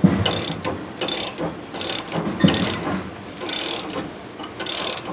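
Ratchet wrench clicking in repeated strokes, about one a second, as it turns a nut on a threaded rod to draw a leaf spring bushing into the spring eye.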